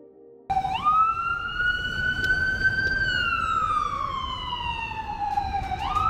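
Emergency vehicle siren wailing over city street noise, starting suddenly about half a second in. Its pitch rises for about two seconds, falls slowly for about three, and starts climbing again near the end.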